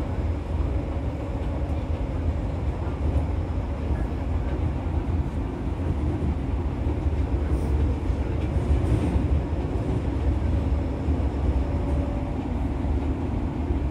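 Fukuoka City Subway 2000 series train with IGBT inverter drive running along the track: a steady low rumble of wheels and running gear, without breaks.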